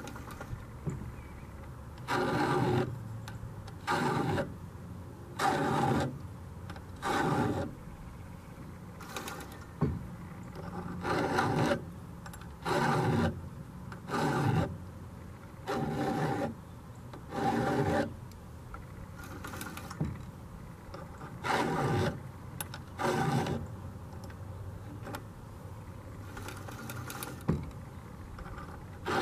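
Round file sharpening the cutters of a chainsaw rip chain in a Granberg bar-mounted file guide: rasping file strokes, each about half a second long, repeating about every one and a half to two seconds.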